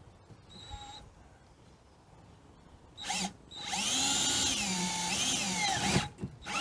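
Electric drill boring a hole in a Land Rover Discovery's door panel: a short blip about three seconds in, then a run of about two seconds, the motor's pitch dipping and recovering as the bit bites.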